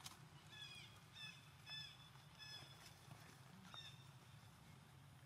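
Faint, repeated short high chirps from a bird, each sliding down in pitch, about one or two a second, over a low steady hum.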